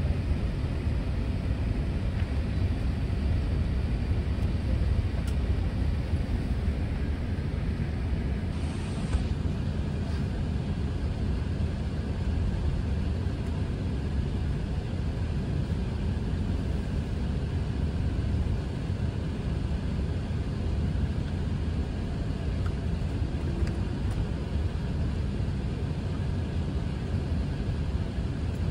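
Steady low rumble inside an Airbus A380's cabin as the aircraft taxis onto the runway.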